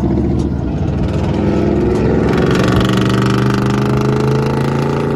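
A vehicle engine running loud, its pitch rising steadily as it accelerates from about two seconds in.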